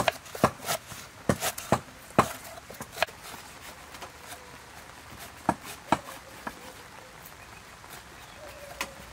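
Kitchen knife chopping green herbs on a thick round wooden chopping block: sharp, irregular knocks, several a second for the first three seconds, then a few scattered ones.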